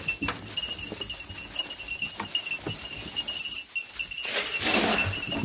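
Sheep crowding and feeding on alfalfa pellets: scattered knocks and clicks of hooves and eating, with a short rushing burst about four and a half seconds in.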